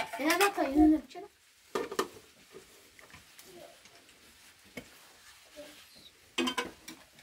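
A short burst of voice in the first second, then light clinks and scrapes of metal cooking pots and a metal lid being handled, with a sharper clank near the end.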